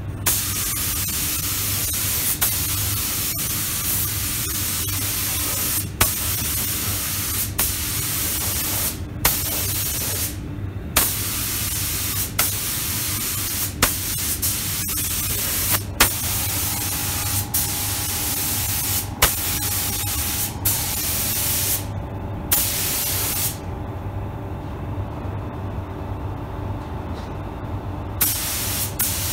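SATA 5000 RP spray gun with a 1.2 tip hissing steadily as clear coat is sprayed in passes, the air cutting off briefly between passes a few times and for about five seconds near the end as the trigger is released. A steady low hum runs underneath.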